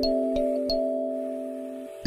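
Soft background music of sustained, bell-like keyboard notes, a few new notes struck about every third of a second over a held chord that fades away near the end.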